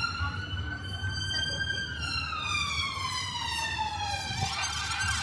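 Emergency vehicle siren in a slow wail: one long tone that rises, then falls over a few seconds, then jumps back up near the end into a quicker, busier pattern. Street traffic rumbles underneath.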